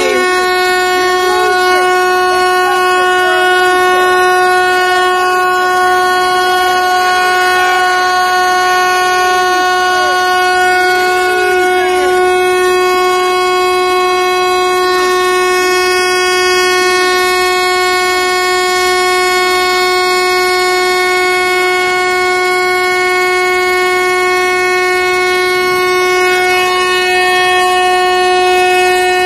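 A truck horn held down in one continuous, unchanging blare, with faint voices over it in roughly the first dozen seconds.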